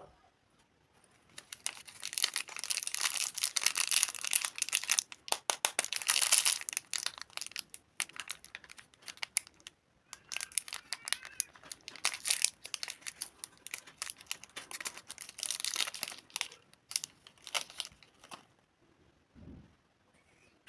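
Candy wrapper being crinkled and torn open by hand: two long spells of dense crackling, then a few short crinkles.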